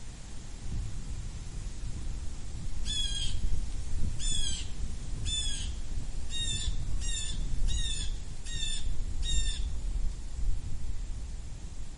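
Blue jay giving a series of eight jay calls, three spaced about a second apart and then five in quicker succession, starting about three seconds in. A low rumbling noise runs underneath.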